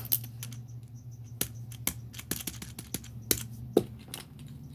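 Small plastic fidget toys being handled and set down: irregular clicks and taps, over a steady low hum.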